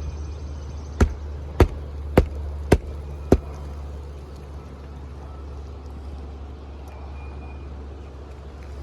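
Hammer driving a 1.25 inch roofing nail into a new asphalt shingle: five sharp blows in quick succession, about 0.6 s apart, over a steady low rumble.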